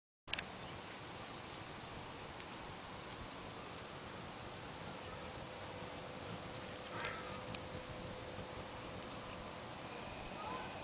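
Crickets or similar night insects trilling steadily in one high, unbroken tone, with a click as the sound begins and a light tap about seven seconds in.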